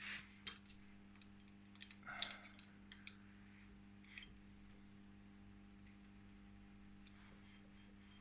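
Near silence with a steady low hum and a few faint clicks, the loudest a short scrape about two seconds in: light handling of tools and the screws that hold the lathe pulley's bronze bushing.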